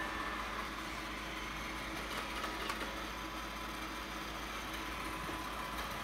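Robot vacuums running as they drive themselves back to their charging docks on a hard floor: a steady mechanical hum with a faint steady whine and a few light clicks a couple of seconds in.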